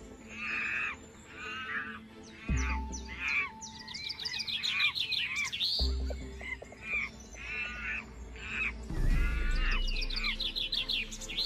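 Many short, high chirping and squealing animal calls in quick succession over steady background music.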